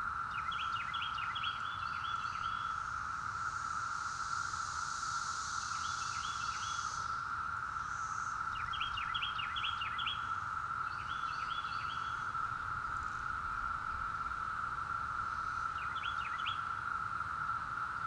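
Cicada chorus droning steadily on one pitch, with a northern mockingbird singing short bursts of quick, repeated, falling notes over it, five times.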